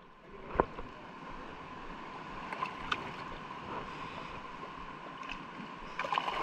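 Steady wash of sea water with wind on the microphone, broken by a sharp click about half a second in and a few faint clicks later.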